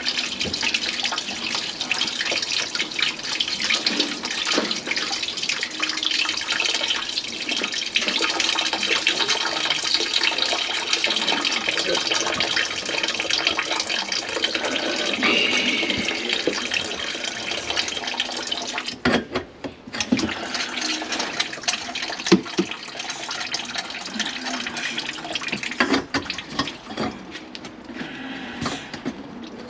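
Water pouring from the sink's drain tailpiece, with the P-trap off, into a plastic tub below: a steady splashing that stops about 19 seconds in. A few knocks follow, and near the end the drain fittings are handled.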